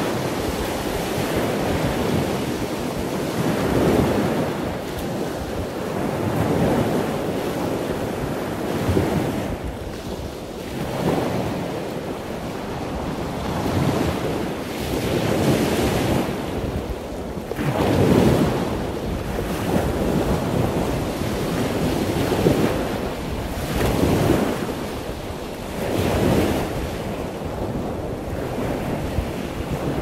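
Wind buffeting the microphone in uneven gusts over the continuous wash of ocean surf.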